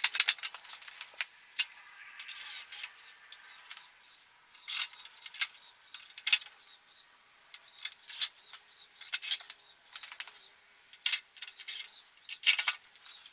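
Sheet-metal cover of a home theatre receiver being fitted and screwed down with a cordless drill: a string of sharp metallic clicks and clinks, with a few brief drill runs.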